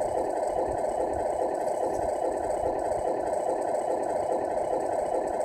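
Simulated truck diesel engine idling steadily, played through the small onboard speaker of the Tamiya MFC-01 multi-function control unit in a 1/14 RC Scania R470 tractor truck.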